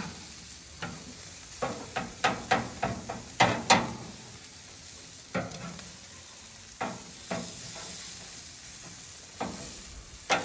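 Metal tongs clicking and clacking against a charcoal grill's wire grate as chicken pieces are turned: a dozen or so sharp clicks, most of them in a quick run in the first four seconds and a few spaced out later. Under them the chicken sizzles steadily over the coals.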